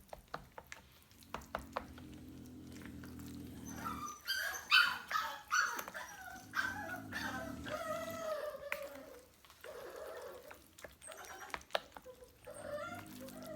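A dog whining and yelping in a run of high, sliding yips, loudest a few seconds in. A low steady hum and a few light clicks come and go underneath.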